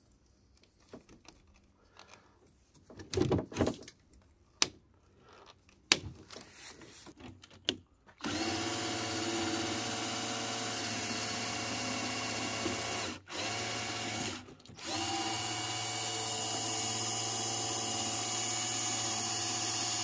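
Parkside cordless drill spinning a drill-driven pump at a steady speed, drawing air and diesel out of a car's fuel line to bleed the diesel fuel system. It starts about eight seconds in and cuts out briefly twice near the middle. Before it starts there are a few clicks and knocks.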